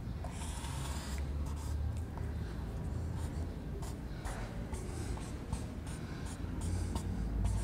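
Marker pen scratching across a whiteboard in short, irregular strokes as a diagram is drawn, over a low steady hum.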